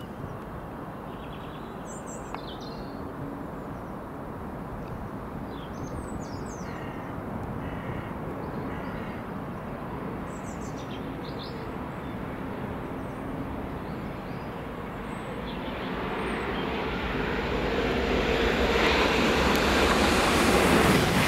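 A train approaching on the main line: its noise builds steadily from about three-quarters of the way through and is loudest near the end. Before that, a low steady rumble, with a few brief high chirps in the first half.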